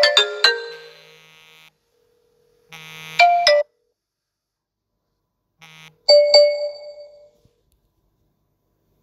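Android smartphone ringtone for an incoming WhatsApp call, its electronic melody stopping about half a second in and fading out. Short electronic notification chimes follow: one about 3 seconds in, and a single ding just after 6 seconds that rings out, as a missed-call notification appears.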